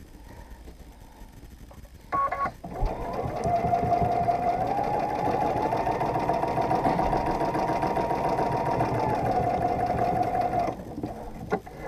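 Domestic sewing machine stitching steadily for about eight seconds while free-motion ruler quilting with the feed dogs lowered; its motor whine rises a little in the middle and drops back before it stops near the end. A short beep comes about two seconds in, just before the stitching starts.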